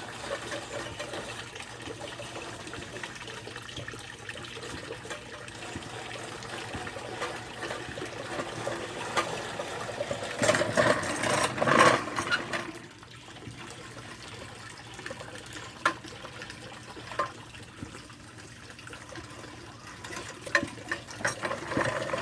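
Electric, gas-free lawn mower rigged for remote control, running with a steady motor hum and a rushing hiss. It gets louder and rougher for a few seconds around the middle, then drops back quieter, with a few sharp clicks and knocks near the end.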